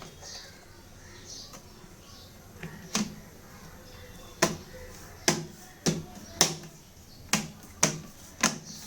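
Bottom cover of a Lenovo IdeaPad 330S laptop being pressed back on, its clips snapping into place: a string of sharp clicks, one about three seconds in, then roughly two a second through the second half.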